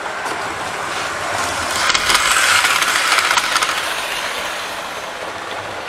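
Model train running past close by on the layout track, its wheels clicking and running on the rails with the motor whirring. The sound builds to its loudest about two to three seconds in, then fades as it moves away.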